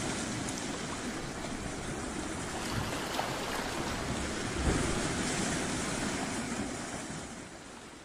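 Sea waves washing and churning, with a dull low thump about halfway through; the sound fades out near the end.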